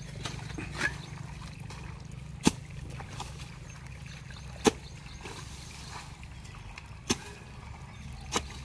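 Digging hoe chopping into wet earth and grass, a sharp thud roughly every two seconds, over a steady low hum.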